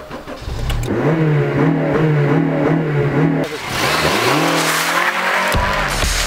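Honda Civic Type R engine revving high and held, dipping for a moment about halfway before climbing again. Tyre noise swells in the second half as the car slides in a drift.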